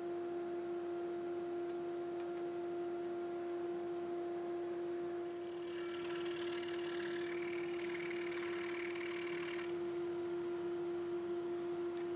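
Excalibur scroll saw running with a steady hum while its blade cuts through a wooden board. The sawing noise of the blade gets louder for a few seconds in the middle.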